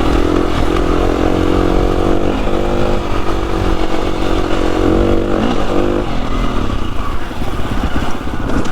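Trail motorcycle engine running as the bike rides along a rough lane, its note stepping up and down with the throttle. About six seconds in the steady note breaks up into a rougher, uneven sound, under a low rumble of wind on the microphone.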